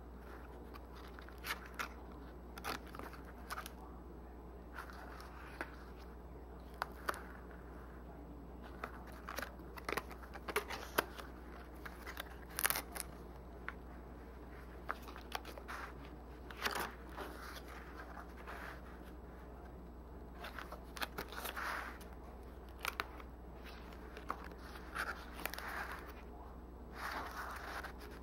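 Stiff folded paper pages of a handmade book being opened and unfolded by hand: irregular crisp rustles, crinkles and small paper clicks.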